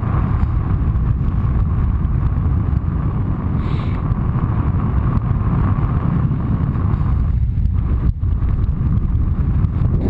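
Wind rushing over the microphone of a camera on a paraglider in flight: a loud, steady low rumble, with a faint steady higher tone that drops away about three-quarters of the way through.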